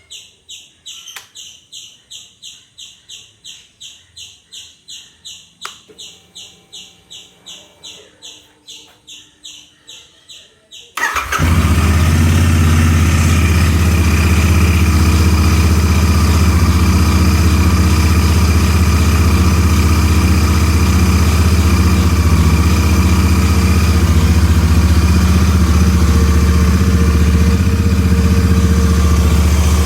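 Royal Enfield Interceptor 650 parallel-twin engine starting about eleven seconds in and then idling steadily, carrying the abnormal howling sound its owner complains of. Before the start, a faint high chirp repeats about three times a second.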